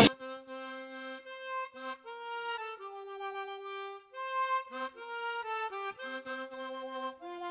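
Background music: a slow melody played one note at a time on a harmonica.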